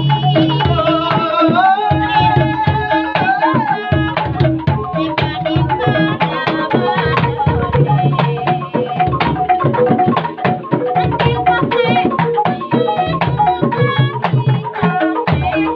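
Calung Banyumasan ensemble playing: bamboo calung xylophones struck in quick repeated patterns, driven by kendang hand drums with deep strokes, and a held, wavering melody line over the first few seconds.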